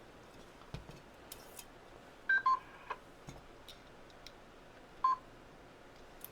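Radio Shack HTX-10 transceiver giving short key-press beeps as its buttons are pressed: a higher beep then a lower one about two seconds in, a faint one just after, and another lower beep about five seconds in. Small clicks and a short hiss about a second in.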